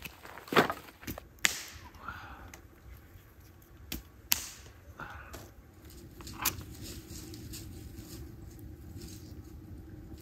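Dry sticks dropped onto a stone fire ring and snapped for kindling: a series of sharp cracks and knocks, the loudest about half a second in, dying out around six seconds in. A steady low drone runs underneath from then on.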